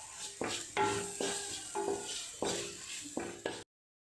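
Spoon stirring a thick chilli-powder and tomato masala in a cooking pan, knocking against the pan about every half second, each knock with a short ring. The sound cuts off suddenly near the end.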